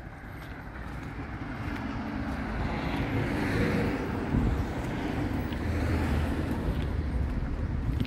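Road traffic: a car passing on the street, its tyre and engine noise swelling over the first few seconds, then a steady low rumble of traffic.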